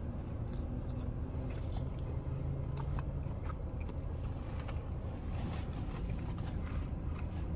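A man biting into and chewing a slice of pepperoni pizza, with scattered small crunches from the crust. Under it is a steady low rumble from the car he sits in.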